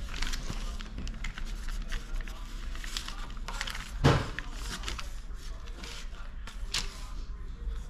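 Quiet handling sounds of filleting a rainbow trout on newspaper: a knife working along the fillet and paper rustling, with a few light clicks over a low steady hum. A brief voice-like sound stands out about four seconds in.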